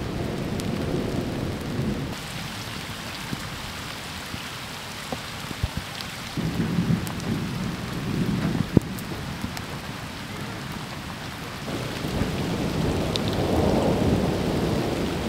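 Steady rain falling, with low rolls of thunder that swell at the start, again in the middle and build once more toward the end, and a few sharp drop ticks in between.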